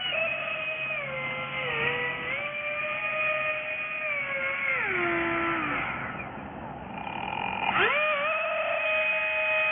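Small electric motor of a remote-control bottle boat whining under throttle. Its pitch slides down and fades about five seconds in as the throttle is eased off, then sweeps sharply back up just before eight seconds and holds steady.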